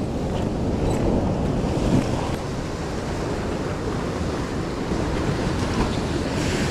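Heavy ocean swell surging and breaking against a sandstone rock ledge, a steady wash of surf that swells louder a couple of times, with wind buffeting the microphone.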